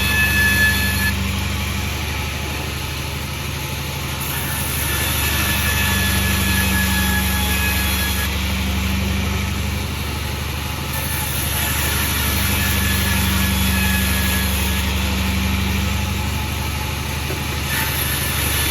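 Sawmill running steadily with a low engine hum. A high hiss swells and drops away every few seconds.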